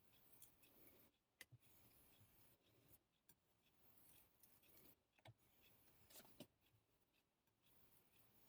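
Faint scraping and a few light clicks of a yanagiba blade being worked on a whetstone, very quiet.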